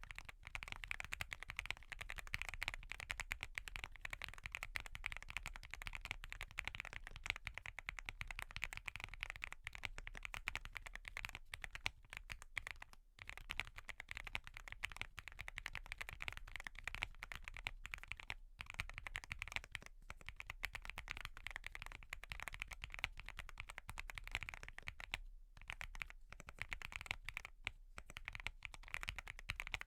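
Fast, continuous typing on a Wobkey Crush80 mechanical keyboard with Gateron Milky Yellow Pro linear switches and full foam dampening: a dense stream of keystrokes with a few brief pauses.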